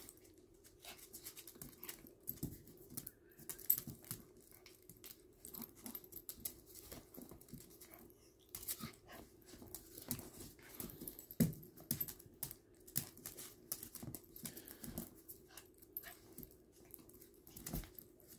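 Two small dogs play-wrestling on a hard plank floor: irregular clicks, scrabbles and scuffles of claws and paws, with a steady low hum underneath.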